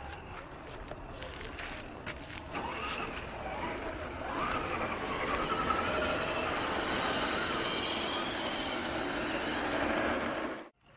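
Electric motors and geared drivetrains of RC scale crawlers whining as they drive over loose rock, the whine rising and falling in pitch with the throttle. It gets louder over the first few seconds and stops abruptly near the end.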